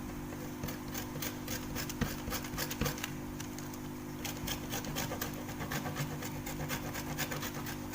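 Kencur (aromatic ginger) rhizome rubbed on a small hand grater through a plastic sheet: a run of quick rasping strokes, several a second.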